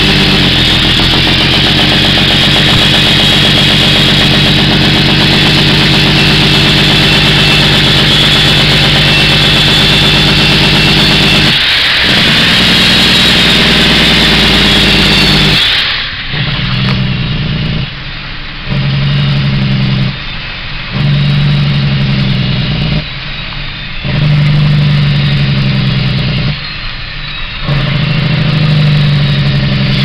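Kenworth logging truck's diesel engine heard from inside the cab, running loud and steady. About halfway through, the engine note starts coming and going in stretches of a couple of seconds with short drops between.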